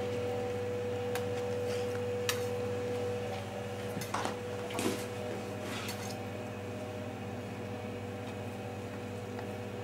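A few light clicks and scrapes of a knife blade against a plastic cutting board as thin slices of smoked salmon are laid out, over a steady background hum.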